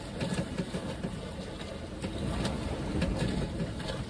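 Steady rushing noise of wind and water aboard a sailboat heeling under sail, with a few faint knocks.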